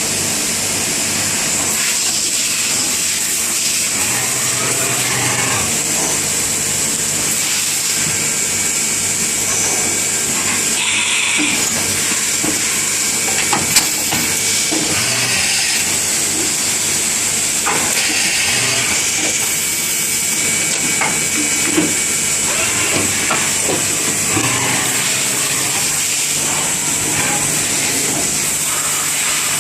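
A CNC machine tool running, making a steady hiss with faint low hum and a couple of sharp clicks partway through.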